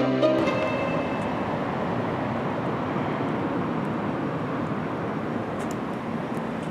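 Electronic music cuts out in the first half second, leaving steady outdoor background noise: an even hiss and rumble with no clear single source.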